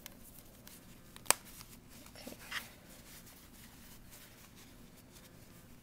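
Quiet handling noise of cotton fabric and a rubber band as it is wrapped around a stuffed fabric ball, with one sharp click about a second in and a soft rustle a second later.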